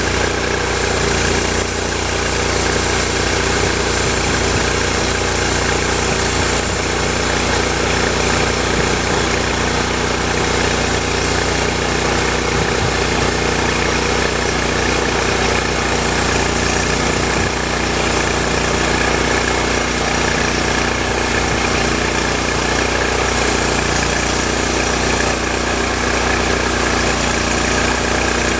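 Portable sawmill's engine running steadily at an even speed.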